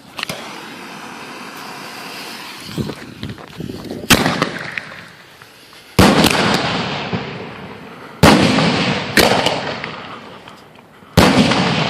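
Consumer fireworks mortar shells going off. A couple of seconds of hissing and a few small pops, then five loud bangs about two seconds apart, each dying away slowly.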